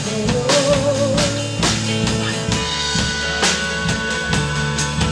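Live rock band playing: a drum kit keeps a steady beat of kick and snare hits under held chords from the other instruments.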